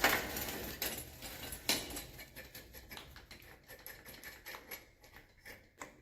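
Metal tool clicking and tapping against a bicycle bottom bracket while it is being loosened: a few louder knocks in the first two seconds, then a run of quicker, fainter ticks.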